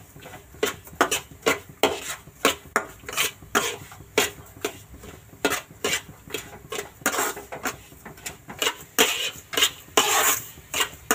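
Steel spatula scraping and knocking against a nonstick kadai while stirring dry semolina as it roasts for upma. The strokes come quick and irregular, about two or three a second.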